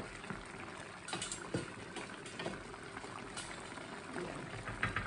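Chicken curry simmering and bubbling in a stainless steel pan while a wooden spoon stirs it, with scattered light knocks of the spoon against the pan. A quick run of rattling clicks starts just before the end.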